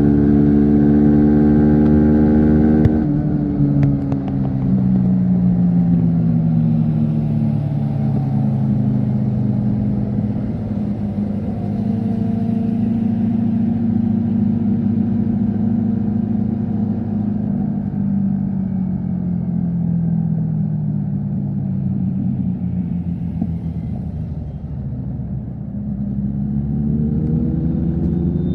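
Yamaha MT-15 V3's single-cylinder engine under way. The revs hold high, drop as the throttle closes about three seconds in, then sink slowly, level off and sink again, before rising as it accelerates near the end.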